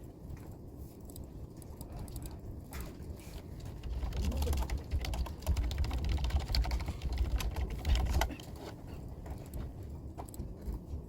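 Typing on a computer keyboard: a run of quick key clicks, over a low rumble in the middle few seconds.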